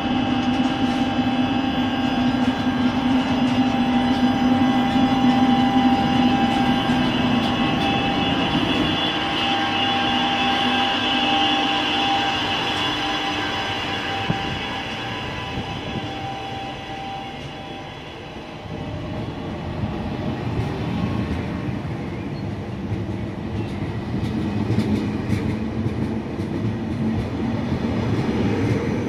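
TGV Duplex double-deck high-speed train rolling past the platform: a steady whine over the rumble of the train, fading out a little over halfway through and leaving the rolling noise of the double-deck carriages' wheels on the rails.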